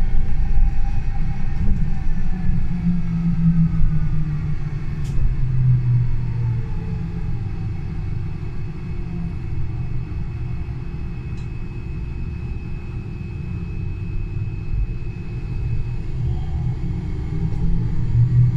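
Solaris Urbino 12 Hydrogen fuel-cell electric bus driving, with a low rumble throughout. The electric drive's whine falls in pitch over the first several seconds as the bus slows. A steady high tone carries on through the quieter middle, and the whine rises again near the end as the bus picks up speed.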